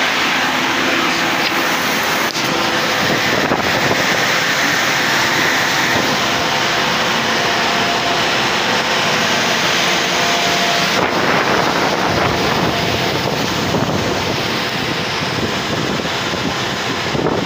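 Claas Lexion combine harvester running close by while harvesting faba beans: a loud, steady machinery noise, with wind buffeting the microphone.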